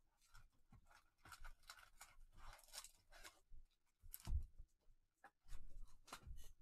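Faint rustling and sliding of a cardboard trading-card hobby box and its wrapped card packs handled in gloved hands, with a dull knock about four seconds in.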